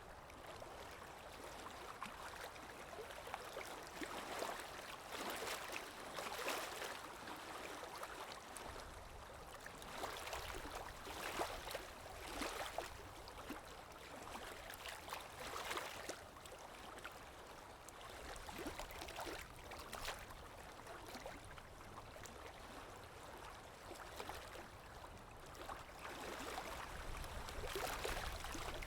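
Water lapping in small irregular splashes every second or two, over a low rumble of wind.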